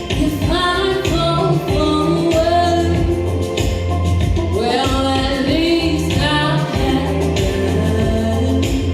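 Live band music with a woman singing lead over backing singers, a steady bass line and regular drum hits.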